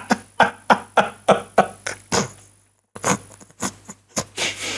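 A man laughing: a run of quick ha-ha bursts, about three a second, then after a short pause a few breathier laughs.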